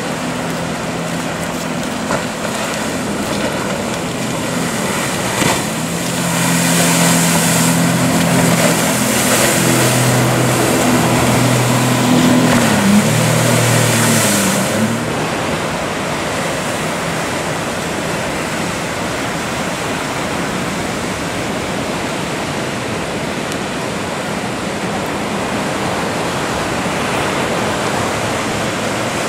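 Surf and breaking waves rushing steadily. A small boat's outboard motor passes close through the swell: its drone grows louder from about six seconds in, along with a hiss of spray, then dips in pitch and falls away around fifteen seconds in.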